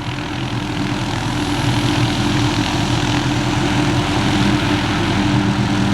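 Hughes 500D helicopter's turboshaft engine and rotors running at high power close by, a steady loud sound that grows a little louder over the first second or two and then holds.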